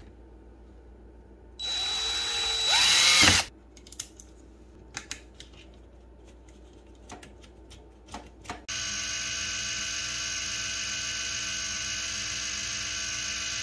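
A power drill runs in a loud burst for under two seconds, about two seconds in. A few small clicks of handling follow. From about nine seconds in, a small gearhead motor salvaged from a cash validator runs with a steady, even whine, driving the window blind's tilt rod through a rubber band.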